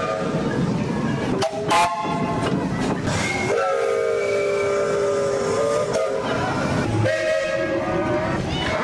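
A train sounding its warning signal: a long, steady blast of several tones together starting about three and a half seconds in and lasting some two and a half seconds, then a second blast near the end. A brief loud burst comes about a second and a half in.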